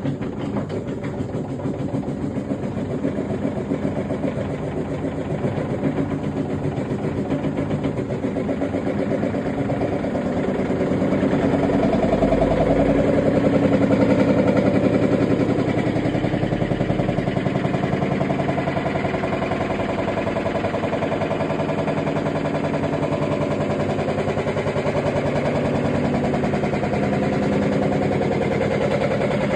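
Electrolux front-loading washing machine running its spin, with a loud, pulsing mechanical rumble that grows louder about ten seconds in and then settles into a steady drone. This is the abnormally loud spin noise the owner presents as a fault.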